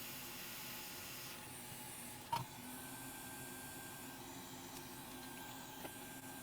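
Faint steady hiss of air from a hot-air rework station being used to replace a chip on a laptop motherboard, easing a little about a second and a half in, with one sharp click a little later.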